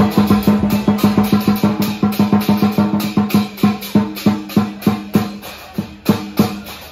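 Lion dance drum and cymbals: a fast roll of strokes that slows about halfway through to about three beats a second.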